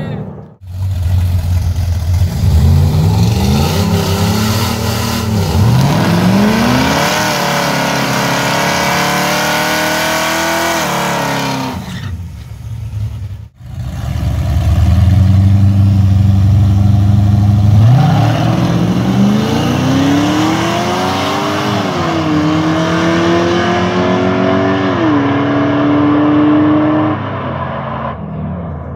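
Drag racing cars accelerating hard down the strip, twice. Each time the engine's pitch climbs and then drops at each gear change. A sudden break separates the two runs.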